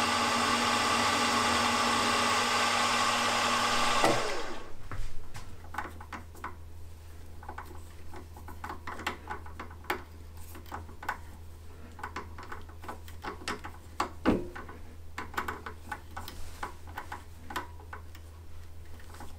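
Milling machine spindle motor running steadily as a small drill bores into the joint between the crank pin and the crank web, then switched off about four seconds in and running down. After that a low steady hum remains, with scattered small clicks and ticks as a tap is turned by hand in a tap wrench to thread the hole for a grub screw.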